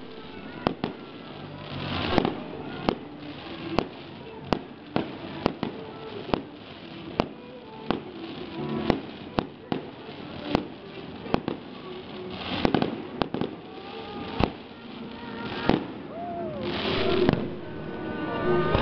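Fireworks display: aerial shells going off in quick, irregular succession, more than one sharp bang a second, with a few longer stretches of hissing crackle between the bangs.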